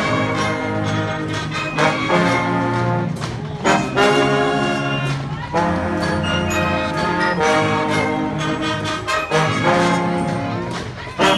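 Brass band playing, with trombones and trumpets prominent: held chords in phrases, with short breaks roughly every two seconds.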